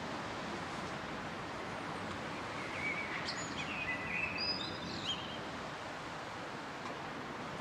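Steady outdoor background hiss during a thunderstorm spell, with a small bird giving a few short high chirps around the middle.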